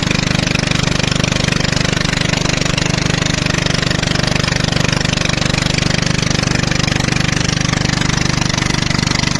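The motor of a small wooden river longboat running steadily with a fast, even pulse, driving the boat along under way.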